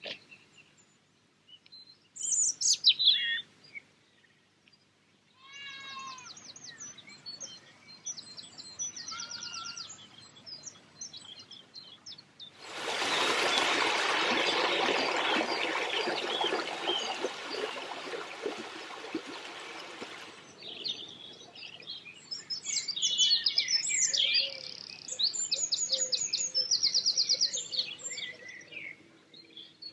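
Wild birds singing: separate whistled notes and fast, rapidly repeated trills. From about a third of the way in, a louder even hiss covers them for about eight seconds, then the birdsong carries on.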